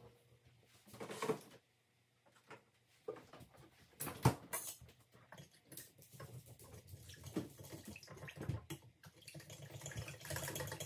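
Danish dough whisk stirring a runny egg, honey and yeast mixture in a glass bowl: soft, irregular sloshing and scraping, with a sharp knock about four seconds in.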